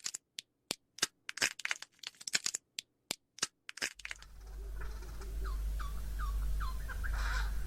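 A rapid, irregular run of sharp clicks and crackles for about four seconds. Then outdoor ambience with a low wind rumble comes in, and a bird gives a run of about six short falling calls, some three a second, followed by a louder, harsher call near the end.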